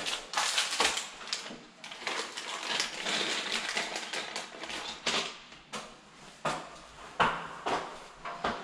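Electrical wires being twisted together by hand and wire nuts screwed onto the splice, close up: irregular clicks, scrapes and rustling, with a denser stretch of scraping in the middle and several sharper clicks toward the end.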